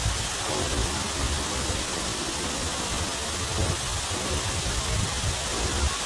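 Cascata del Salto waterfall falling down a cliff face: a steady rushing hiss of falling water with a low rumble underneath.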